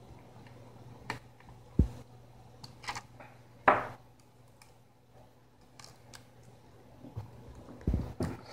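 Scattered small clicks, taps and light scrapes of hands working on a laptop's internals while an M.2 SSD is fitted, with a faint steady low hum underneath.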